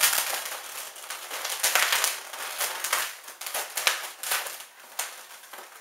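Latex modelling balloons squeaking and rubbing against each other in a busy run of irregular crackly squeaks as two bubbles are twisted together.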